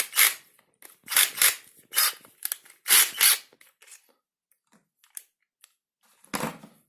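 Handling noise from a flexible drill extension attachment being picked up and readied for the drill: a series of short scraping, rustling bursts, a pause of about two seconds, then one more burst near the end.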